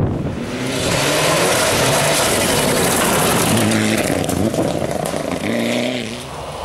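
Mitsubishi Lancer Evolution rally car at full throttle on a gravel stage: its turbocharged four-cylinder engine revs up and drops back again and again through gear changes, over the hiss of gravel thrown from the tyres. Near the end it fades and a second rally car's engine takes over.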